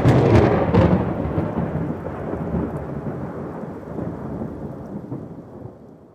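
Thunder: a crackling clap that rolls into a low rumble and dies away over about six seconds.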